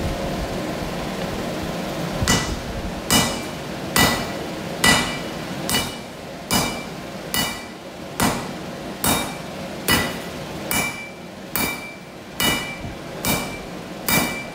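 Sledgehammer blows on red-hot steel, a cut-off piece of forklift fork, laid on a farrier's anvil. After about two seconds, steady rhythmic strikes begin, a little over one a second, each with a short metallic ring.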